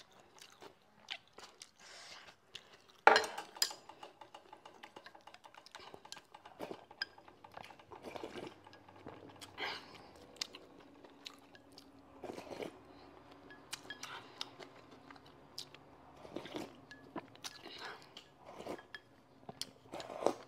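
Close-miked mukbang eating sounds: chewing soup-soaked rice, with chopsticks and a spoon clicking against a porcelain bowl. One sharp, loud clack about three seconds in.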